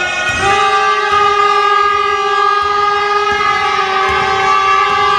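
A loud, long, steady horn-like tone, rich in overtones, that comes in about half a second in and is held without a break.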